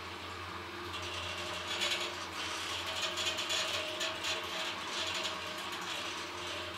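Schindler lift car travelling downward between floors: a steady low hum, with scattered mechanical clicks and rattles from the moving car.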